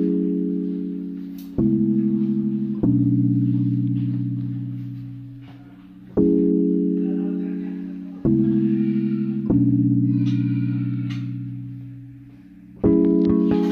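Background music of slow, sustained chords, each struck sharply and slowly fading, changing every one to three seconds in a repeating pattern.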